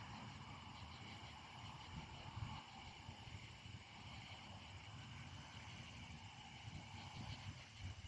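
A faint insect chorus: high, pulsing trills repeating every second or so over a steady high drone. Under it runs a faint low rumble.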